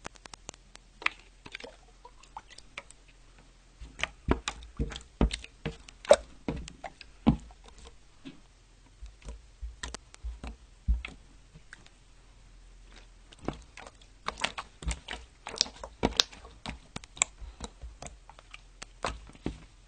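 Jiggly water slime being poked and squeezed by hand: irregular sticky clicks and squelches, busiest in two stretches, from about 4 to 8 seconds and again from about 13 to 17 seconds in.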